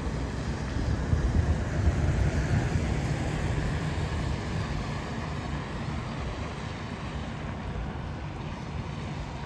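A motor vehicle going by on the road, its tyre and engine noise loudest a second or two in and slowly fading away.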